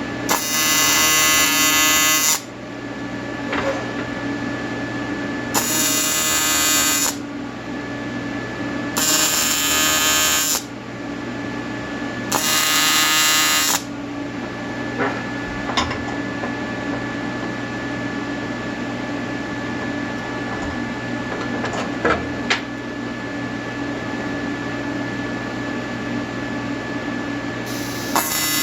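Welding arc, most likely TIG, buzzing in short bursts of one to two seconds, five times, the last near the end. A steady machine hum runs beneath it, with a few faint clicks between the bursts.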